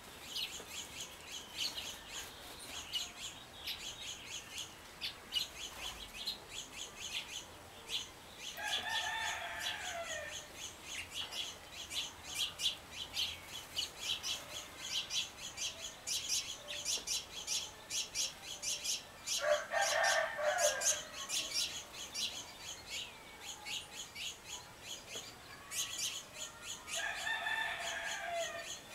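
Many small wild songbirds chirping and calling in quick, overlapping notes. A longer, lower call sounds three times over them.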